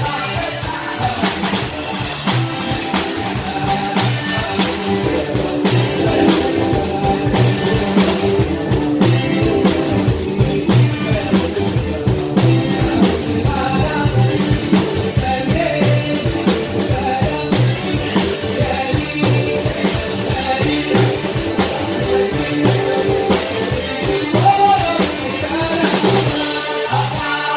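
Live band playing a song, with a drum kit keeping a steady beat under bass and other instruments.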